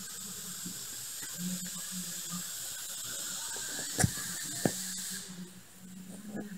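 A steady high hiss cuts off abruptly about five seconds in. Two sharp knocks come shortly before it stops.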